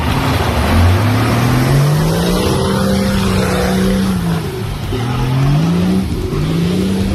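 A four-wheel-drive's engine revving through deep mud. The note climbs and holds for a couple of seconds, drops about four seconds in, then climbs again twice toward the end.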